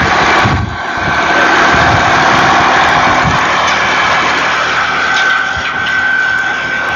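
Road roller's engine running steadily as the steel-drum roller moves along the track, with a steady high whine over the engine noise that grows stronger near the end.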